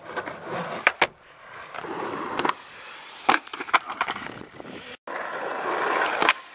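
Skateboard wheels rolling on concrete and asphalt, broken by several sharp clacks of the board popping and landing, with a brief cut-out about five seconds in.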